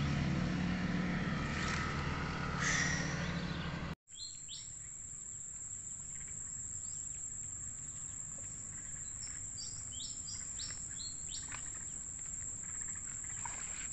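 A low steady hum for the first four seconds, then, after a sudden cut, a steady high-pitched insect drone with many short bird chirps scattered over it.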